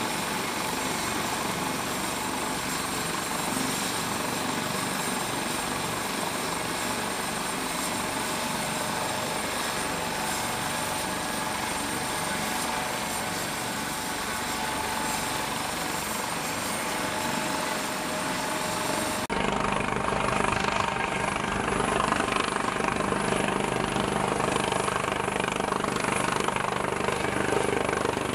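Naval helicopter on a ship's flight deck running with its rotor turning: a steady turbine whine over rotor and wind noise. About two-thirds through, the sound changes abruptly to a louder, duller helicopter noise with the aircraft airborne.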